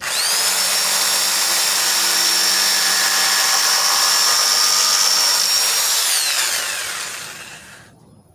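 Handheld electric router switched on, its motor spinning up with a quick rising whine and then running at a steady high pitch. About six seconds in it is switched off, and the whine falls in pitch as the motor winds down.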